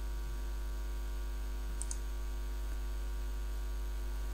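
Steady electrical mains hum with a stack of buzzing overtones. About two seconds in come two short, high ticks close together, a computer mouse click.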